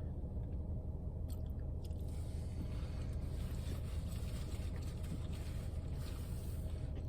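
A person chewing a mouthful of breakfast sandwich, with faint mouth clicks over a steady low hum.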